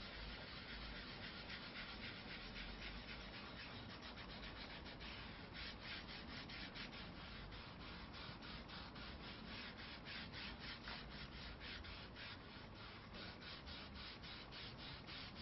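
Faint rubbing of a gloved hand over a motorcycle's black plastic chain guard, working in and wiping over a black-plastic restorer gel. From about five seconds in it settles into fast, even strokes, about four or five a second.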